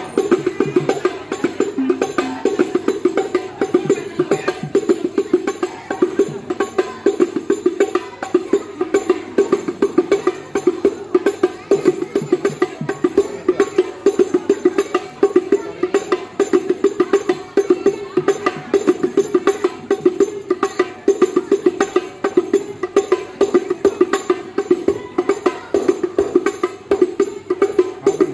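Hadrah music: rebana frame drums playing a fast, steady, interlocking rhythm, heard through a line-array PA system during a sound check.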